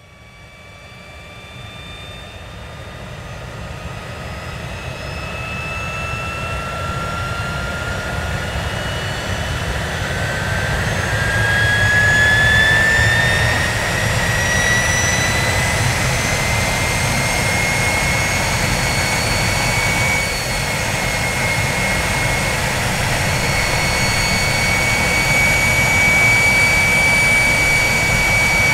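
Jet engine spooling up: a whine rising steadily in pitch for most of the first twenty seconds, then holding steady, over a rushing noise that swells for the first dozen seconds and then stays loud.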